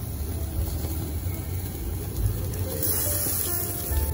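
Tabletop gas yakiniku grill running with a steady low rumble from its burner and smoke extractor, and a brief sizzle about three seconds in as meat goes onto the hot grate. Faint background music plays underneath.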